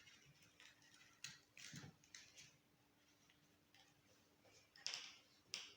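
Near silence with a few faint short taps and rustles, the two loudest near the end, from plasticine being worked by hand with modelling tools.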